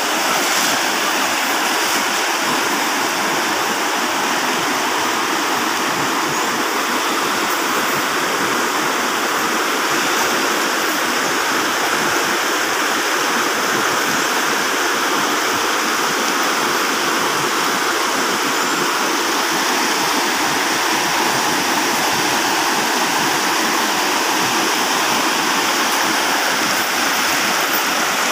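Fast, swollen river rushing over boulders and rapids: a loud, steady rush of water that does not change.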